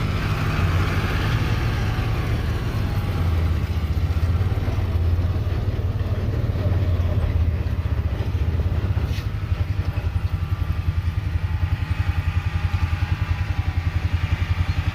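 John Deere 8100 tractor's diesel engine running steadily under load while pulling a baler through the hay. There is a sharp click about nine seconds in, and a rapid, even pulsing over the last few seconds.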